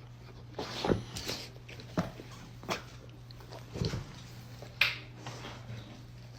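A dog making a series of short sounds, about one a second, over a steady low hum.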